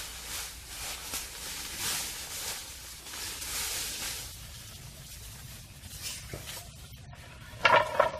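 Scratchy rustling noise, then near the end a sudden loud burst of clucking from a chicken.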